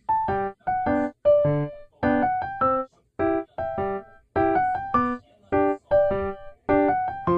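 Background music: short, detached piano-like keyboard chords in a bouncy rhythm, each cut off with a brief gap before the next.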